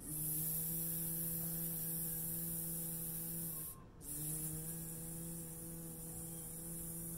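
A woman's voice holding a long buzzing "zzzz", the sound of the letter Z imitating a bee, twice: a short break just under four seconds in, then a second long "zzzz".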